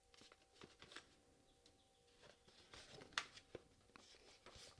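Faint handling of a cardboard knife box being opened: soft rustles and scattered light taps and clicks, the clearest about three seconds in.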